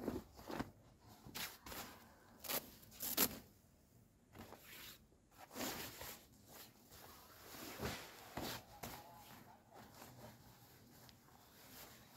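Hammock fabric and a padded quilt rustling and swishing in irregular bursts as they are pulled and spread by hand.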